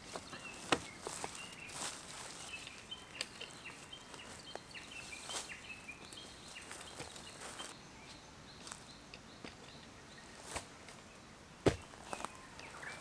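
Outdoor ambience with small birds chirping in short high notes through the first two-thirds, over a faint steady hiss, with scattered sharp clicks and taps, the loudest near the start and about a second before the end.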